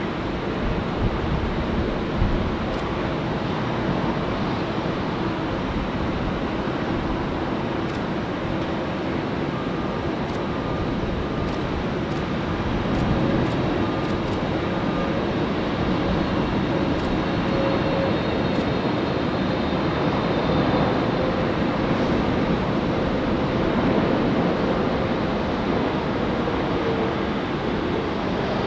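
Boeing 777 twin-engine jet airliner on approach and landing: a steady jet engine roar with a faint whine over it, swelling a little about halfway through and again later on.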